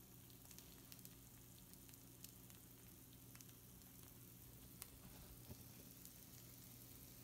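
Faint sizzling of pizza rolls on a hot baking sheet, with scattered small crackling pops and a low steady hum underneath.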